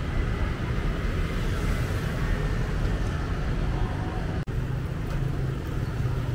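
Steady road traffic noise with motorbikes, broken by a brief dropout in the sound a little past halfway.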